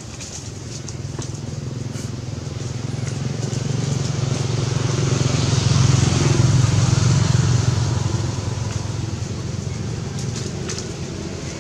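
A motor vehicle's engine passing by: a low hum that grows to its loudest about six seconds in, then fades.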